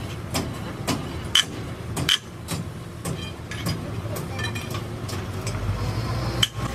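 Sharp metallic knocks, roughly two a second, from metal being struck during work on a truck bogie shaft. A steady low hum of a motor or engine comes in about five seconds in.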